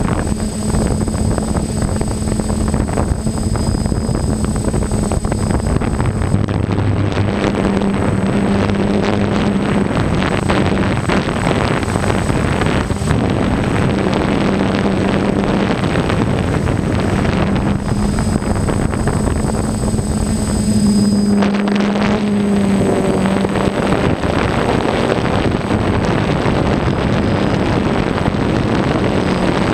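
Hexacopter's electric motors and propellers humming steadily, heard from the camera on the drone itself, with a high faint whine above and rough wind buffeting on the microphone.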